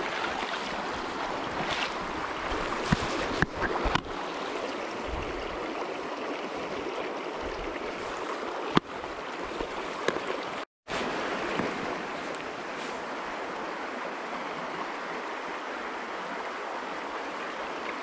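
Shallow creek flowing over rocks: a steady rush of running water. A few sharp clicks and knocks stand out about three to four seconds in and again near nine seconds, and the sound drops out for a moment just before eleven seconds.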